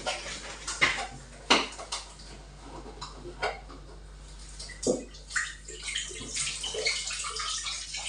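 Kitchenware being handled with a few sharp knocks, then liquid pouring and splashing into a pot on the stove from about halfway through.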